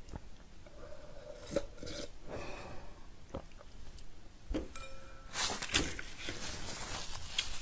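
Mouth sucking an egg yolk off the rim of a tilted glass bowl, then the empty glass bowl knocked and set down on the table with several sharp clinks and knocks.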